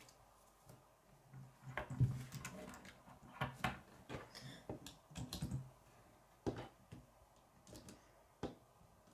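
Plastic K'nex pieces clicking and knocking as they are fitted together by hand, in short scattered clicks at irregular intervals.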